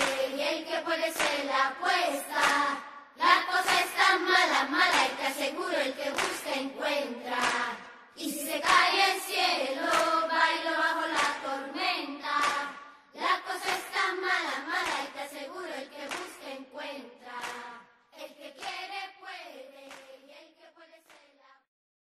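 A song sung by a group of voices, in phrases broken by short pauses, fading out near the end.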